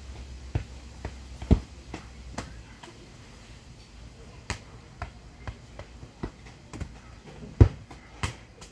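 A soccer ball being kicked and caught: several sharp thumps, the loudest about a second and a half in and shortly before the end, with lighter ticks in between.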